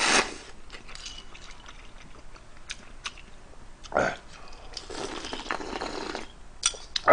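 A man slurping ramen noodles and broth from a bowl held to his mouth: short slurps at the start, about four seconds in and again a second later, with chewing and a few light clicks in between.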